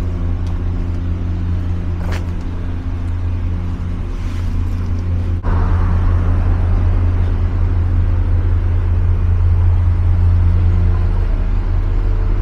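Steady low hum of a vehicle engine running, even in pitch. It cuts out for an instant about five seconds in and comes back louder.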